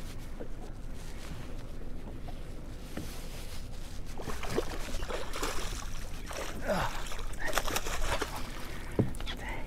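Water splashing and sloshing at the boat's side as a hooked king mackerel thrashes at the surface while being netted, the splashing heaviest from about four to eight seconds in.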